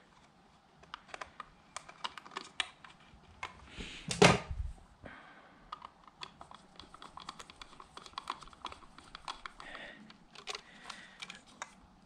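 Screwdriver tightening the terminal screws of a 20-amp outlet in a plastic box: a string of small, irregular clicks and ticks, with one louder knock about four seconds in.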